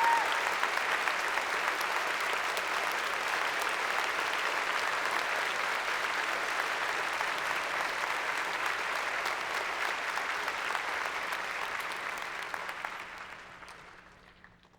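Audience applauding: dense, steady clapping from many hands that fades out over the last two or three seconds.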